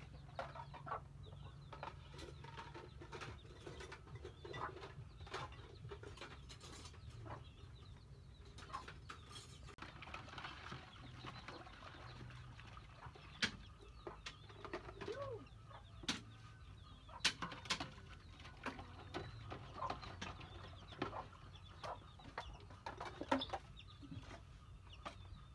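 Farmyard ambience: chickens clucking and small birds calling on and off, with several sharp knocks or clatters and a low steady rumble underneath.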